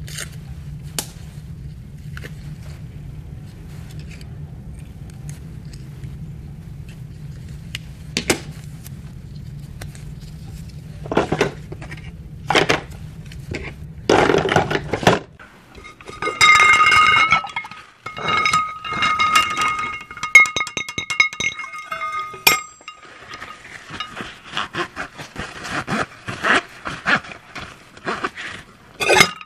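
Barber's tools and counter items being handled: a low steady hum for about the first half, with scattered clicks and a plastic drawer sliding. Then metal and glass clinking with a ringing tone for several seconds, followed by a quick series of taps and rattles as bottles and jars are picked up and put down.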